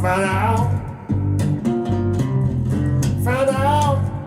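A song played back on Pure Audio Project Duet 15 open-baffle speakers: bass and plucked guitar under a voice that sings two held, wavering phrases, one at the start and one about three seconds in.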